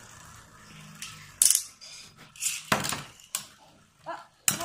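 Beyblade Burst spinning tops in a plastic stadium: a handful of sharp plastic clacks as a second top goes in and the tops knock against each other and the stadium. The loudest clack comes about a second and a half in.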